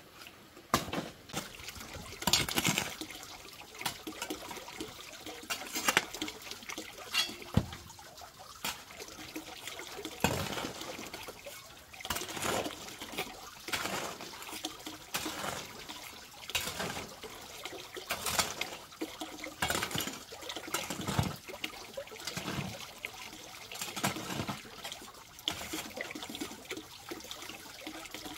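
A metal hoe scraping and chopping into a pile of gravelly sand, one stroke every second or two, with grit and sand pouring and trickling off the blade.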